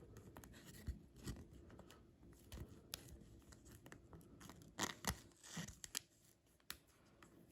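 Faint rustling and a scatter of small clicks from trading cards and plastic card sleeves being handled, with the busiest handling about five seconds in.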